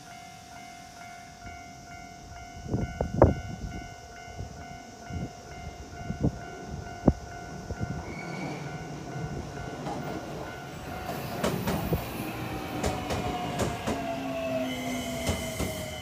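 Level-crossing warning bell ringing its rapid, repeating clang while a train runs over the crossing. Sharp wheel knocks over the rail joints come around 3 and 7 seconds in, and the rumble of the cars grows louder through the second half.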